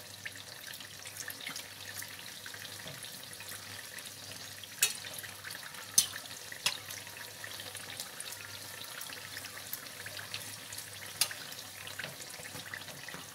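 Hot cooking oil in a frying pan sizzling with a steady hiss, broken by a few sharp clicks about five, six and eleven seconds in. Near the end, pastries are lowered into the oil, which bubbles around them.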